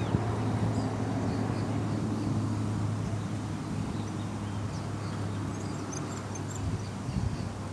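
Steady low motor hum with a few faint bird chirps above it.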